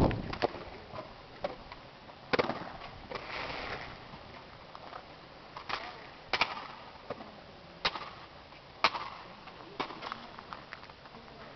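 Drill rifles being caught, slapped and handled in exhibition rifle drill: sharp slaps and clacks, about ten of them at uneven spacing.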